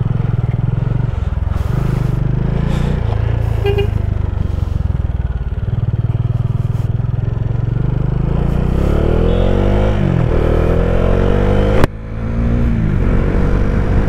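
Motorcycle engine running as the bike pulls away and rides on, heard from the rider's position. In the second half its pitch rises and falls repeatedly as it accelerates. There is a sharp click and a brief sudden drop in level near the end.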